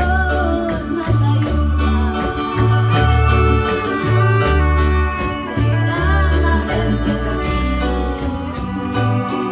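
Music: a song with a singing voice over a rhythmic bass line and instruments.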